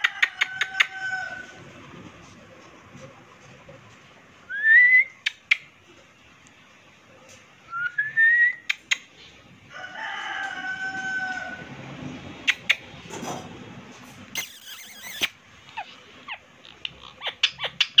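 Indian ringneck parrot giving two short rising whistles and then a longer held call about ten seconds in, among scattered sharp clicks and a brief rustle.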